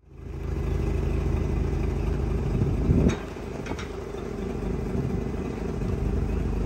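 An engine idling with a steady low rumble, with a brief louder clatter about three seconds in.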